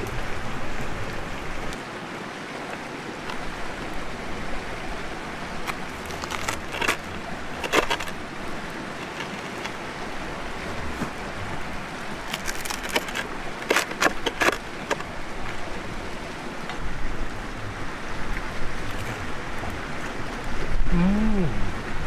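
A knife cutting through a crisp flatbread pizza crust on a wooden board, a cluster of sharp crunching clicks about two-thirds of the way in, with a few single clicks earlier, over a steady hiss.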